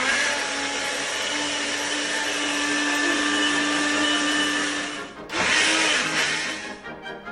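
A personal push-down blender running steadily with a motor hum as it blends frozen cherries and honey into a smoothie. It cuts out for a moment about five seconds in, runs again for about a second and a half, then stops near the end.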